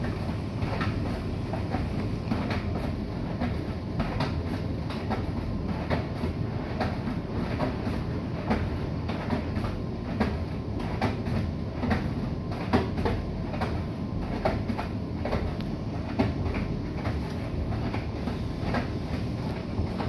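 Bosch i-Dos WGG154A10 front-loading washing machine running: a steady low rumble from the turning drum, with irregular clicks and knocks.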